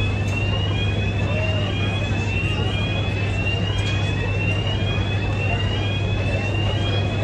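Warning alarm on the Highspeed 7 fast ferry while its hatch opens: a short rising electronic tone repeats about every two-thirds of a second over a steady low machinery hum.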